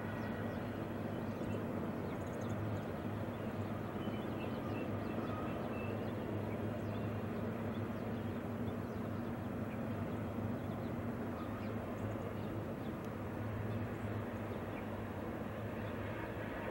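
Distant BNSF diesel-electric locomotives running under power, a steady low engine drone.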